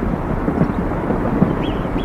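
Landslide rumbling: a steady, loud low rumble of rock and debris tumbling down a mountainside, with small knocks of material breaking within it.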